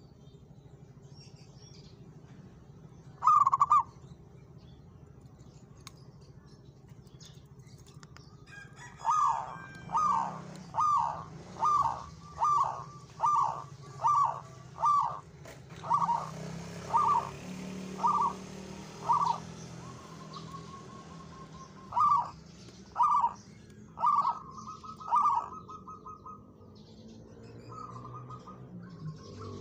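Zebra dove (perkutut) cooing: one loud note a few seconds in, then a run of about a dozen short, falling coos at roughly one a second. A held note, four more coos and a short wavering phrase come near the end.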